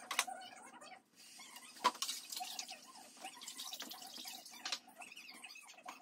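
Water dripping and splashing as a scalded, plucked chicken is lifted out of a bucket of water, with three sharp knocks along the way.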